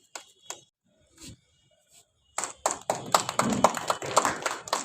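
Audience applauding, a short burst of many hands clapping that starts about halfway in.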